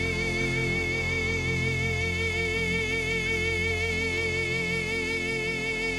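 A man singing one long held note with a steady vibrato, over sustained instrumental accompaniment with low bass notes.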